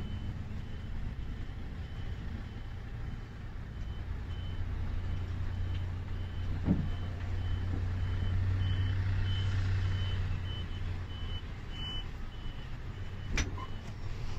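Coach engine running at low speed, heard from inside the cabin as a steady low hum. Over it an electronic beep repeats evenly about twice a second, stopping near the end. There is a brief thump about halfway through.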